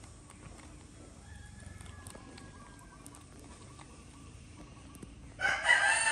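Quiet background with faint small clicks, then a loud rooster crow begins near the end.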